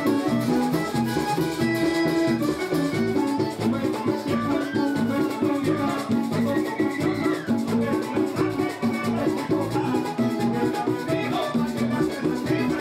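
A live vallenato band playing at full volume: button accordion, electric bass and percussion keeping a steady, quick beat.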